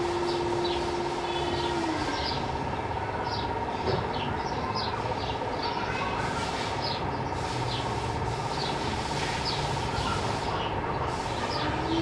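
House sparrows chirping over steady urban background noise, short high chirps coming several times a second. A steady hum runs underneath, and a lower droning tone drops away about two seconds in.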